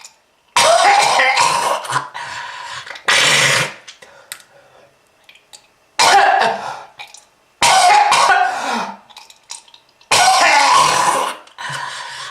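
A person coughing in about five harsh bouts a few seconds apart, each starting loud and trailing off: a smoker's cough.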